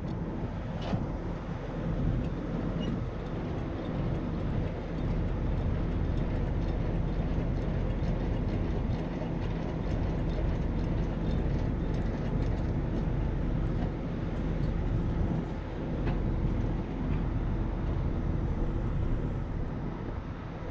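Peterbilt semi truck's diesel engine idling, a steady low rumble, with a light click about a second in.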